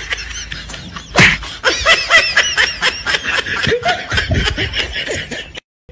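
A person laughing in a quick run of short 'ha-ha' bursts that stops abruptly near the end.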